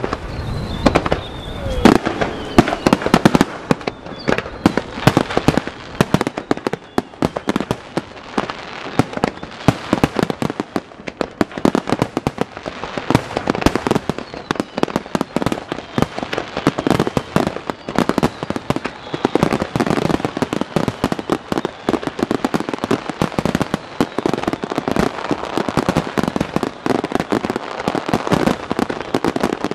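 Aerial fireworks shells bursting in a rapid, unbroken barrage, with booms and crackling overlapping many times a second.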